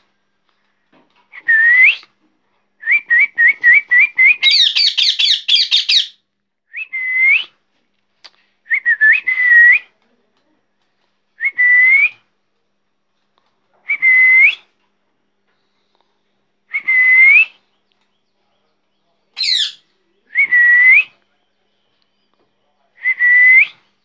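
Young rose-ringed parakeet whistling: short whistles that dip and then rise, repeated every two to three seconds, with a fast run of sharper chirps between about three and six seconds in and one high falling squeak near the end.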